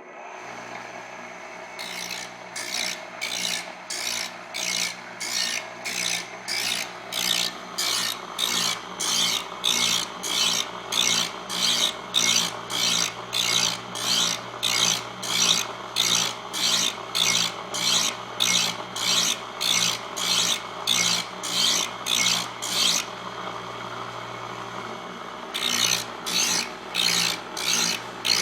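Bench grinder running with a steel hook-scraper blade pushed lightly against the wheel in short repeated passes, a rasping grind about one and a half times a second over a steady motor hum. The passes are kept short to put the bevel on without overheating the metal; they stop for about two seconds near the end, then start again.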